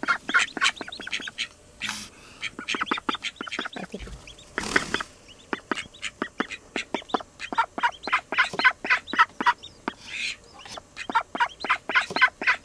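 Domestic ducks at the nest, a brooding hen and her newly hatched duckling, giving a rapid run of short calls, several a second. A brief burst of noise comes about four and a half seconds in.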